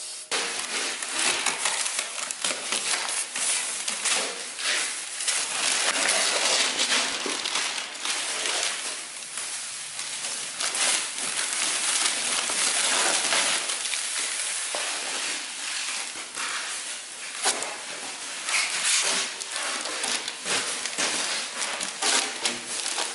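Plastic masking film and masking paper being pulled off a truck bed, crinkling and tearing in a dense, continuous crackle of rustles.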